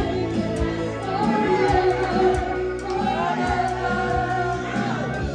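A live rock cover band playing: a woman sings lead with long held, wavering notes over electric guitar, bass and a steady drum beat.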